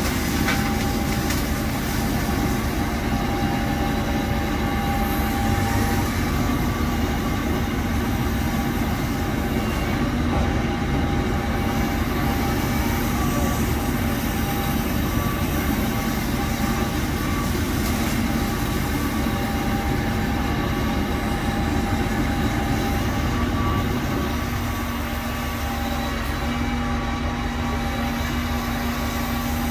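Heavy debris grapple truck's engine running steadily, a continuous loud drone with several held tones. Its low end changes about three-quarters of the way through.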